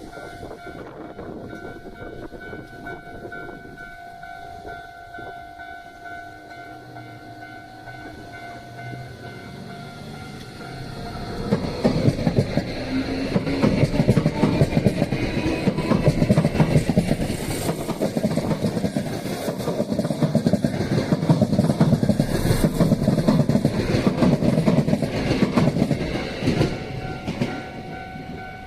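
Level-crossing warning bell ringing steadily, then an electric train passes close by from about eleven seconds in. Its wheels clatter over the rail joints for about fifteen seconds before it fades near the end.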